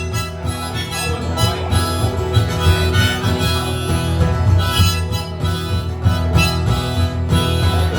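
Instrumental break: a harmonica playing the melody over a strummed guitar keeping a steady rhythm.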